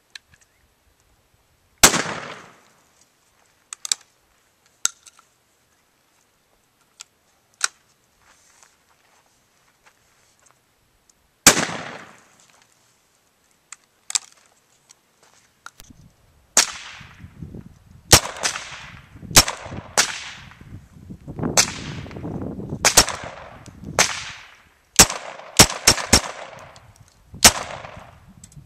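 Two single shots from a 20-gauge Baikal MP-18 single-shot shotgun, about ten seconds apart, each with a long trailing echo, and a few small clicks between them. Then a rapid, uneven string of about fifteen shots from a Smith & Wesson 22A .22 Long Rifle semi-automatic pistol.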